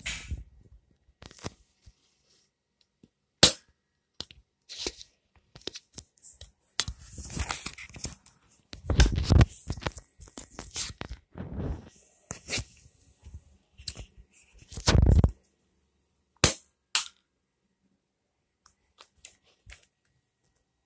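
Close handling noise: rubbing and rustling on the microphone, with scattered sharp clicks and knocks, as a toy dart blaster and the recording phone are handled.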